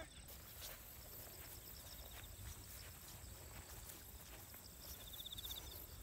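Insects chirping: two short, rapid, high trills, about two seconds in and again near the end, over a steady high-pitched insect buzz and a faint low rumble.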